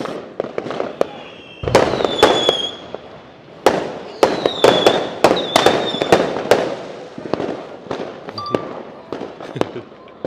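Fireworks going off in quick succession: sharp bangs in two dense clusters with scattered single bangs around them, and short high whistling tones among the bursts.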